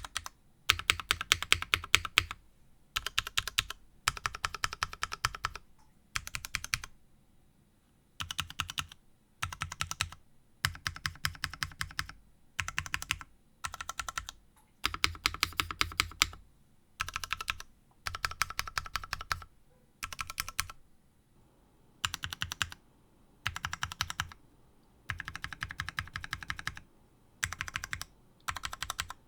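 Modifier keys pressed in quick repeated runs on a Dolch65 custom mechanical keyboard with Cherry MX Black Hyperglide linear switches on a full nylon plate. The runs of clacks last a second or two, with short pauses between them. The keycaps change partway through from Cherry-profile GMK to MTNU-profile GMK and then to DSS-profile SP caps.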